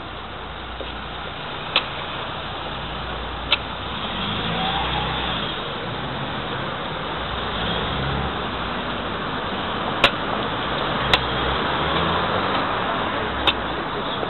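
Town street traffic noise: cars running past in a steady hum that swells a little after the first few seconds, with a handful of sharp, irregular clicks on top.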